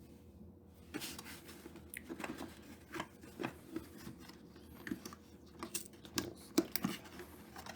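Packaging of a trading-card collector box being handled and opened: irregular rustling, crinkling and light knocks of cardboard and plastic.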